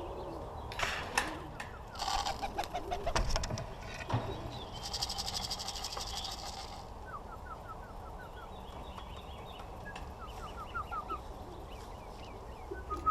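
Racing pigeon's wings clapping and fluttering as it comes in to land at the loft, in several bouts, with a fast flutter about five seconds in. Small songbirds chirp in quick runs later on.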